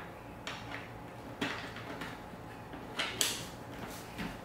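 A few short clicks and scrapes as the visor clip is fitted and twisted into the side mount of a Ruroc Atlas 2.0 motorcycle helmet, the two sounds near the end coming close together.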